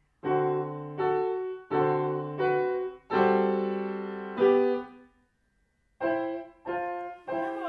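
Grand piano played by a young beginner: a simple two-handed tune of separate struck notes, one held longer in the middle. It breaks off for about a second, then three more notes follow near the end.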